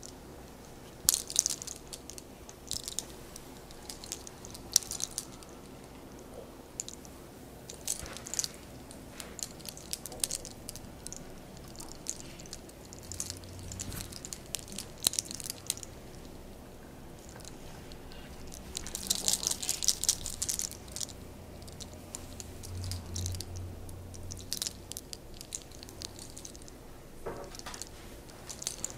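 Hair cracking (sacar los soles): locks of hair twisted and pulled at the scalp, giving scattered sharp crackles and pops, with a denser run of crackling about two-thirds through.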